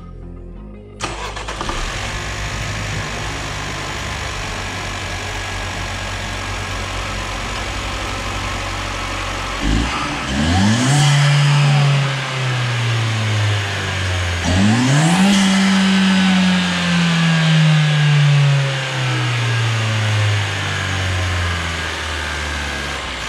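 Big-turbo Ecotec four-cylinder in a second-generation Chevrolet Cruze running at idle from about a second in, then revved twice in neutral, each rev falling slowly back toward idle. This is a test of the freshly fitted Go Fast Bits diverter valve, and it sounds pretty good.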